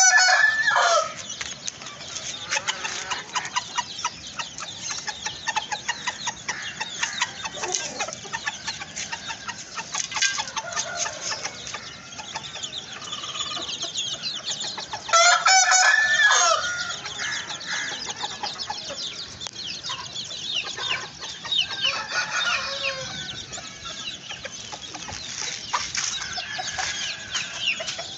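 Chickens clucking almost continuously, with a rooster crowing loudly twice: once at the start and again about halfway through.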